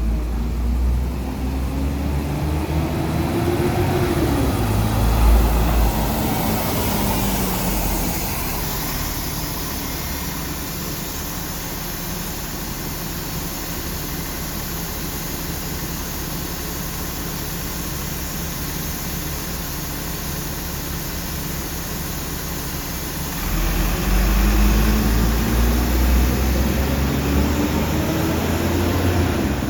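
Alexander Dennis Enviro500 MMC double-decker bus engine pulling away with a rising whine and heavy low rumble, then settling to a steady lower run, then pulling away again with a rising whine about 23 seconds in. The engine is making an abnormal noise.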